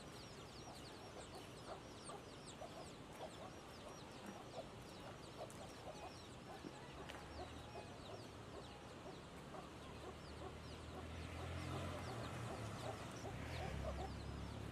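Chickens clucking faintly, with many thin high chirps throughout. A low rumble builds up in the second half.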